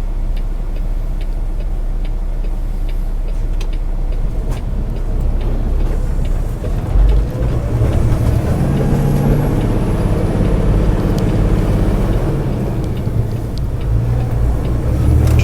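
A semi truck's diesel engine heard from inside the cab, running at a low idle with a faint regular ticking. About seven seconds in the engine revs up and pulls as the truck moves off from a stop.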